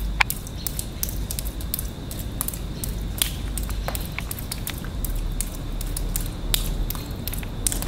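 Footsteps crunching over broken glass and debris: a steady run of sharp, irregular crackles and clicks over a low rumble.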